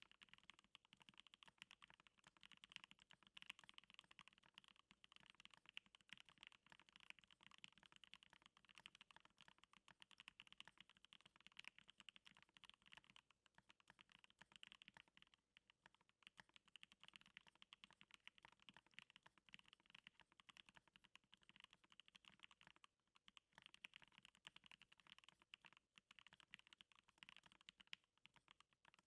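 Continuous fast typing on a stacked-acrylic mechanical keyboard fitted with Gateron Hippo switches and NicePBT keycaps: a dense, faint stream of keystroke clicks with a few brief pauses.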